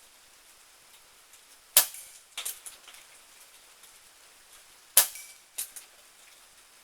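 Two shots from a .22 Benjamin Marauder PCP air pistol, about three seconds apart, each followed about half a second later by a few fainter clicks. Light rain hisses underneath.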